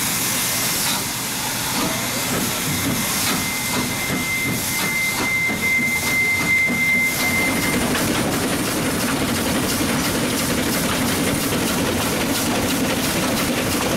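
Small C2-class narrow-gauge steam locomotive hissing steam from around its cylinders as it starts moving. A thin, steady high tone sounds for about four seconds a few seconds in. In the second half a regular beat of exhaust and running gear sets in as the engine gets under way.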